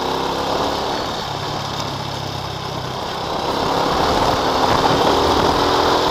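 Honda scooter's small single-cylinder engine running under way. It gets louder about three and a half seconds in as the throttle opens, with a rush of wind and road noise rising along with it.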